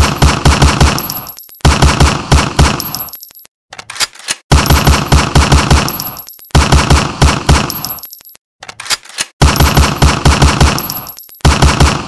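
Colt 1911 .45 pistol firing in quick strings of about six shots, each string lasting a second or so and ending in a ringing tail, with short pauses between strings.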